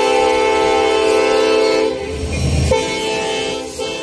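Train air horn sounding a long steady blast, cut off about two seconds in by a brief rumble, then sounding again more softly and fading away near the end.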